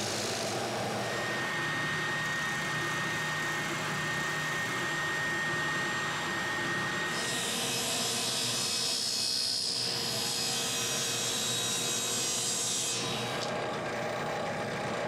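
Drill press boring into plywood with a Forstner bit, cutting steadily. About halfway through, a table saw cuts through a plywood piece, and near the end the drill press drills a small hole in a wooden block.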